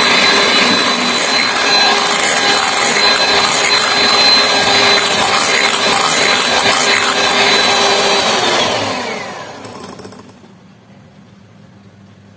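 Electric hand mixer whipping egg batter for a sponge cake, its motor running with a steady high whine. About eight and a half seconds in it is switched off and the whine falls in pitch and fades as the motor spins down.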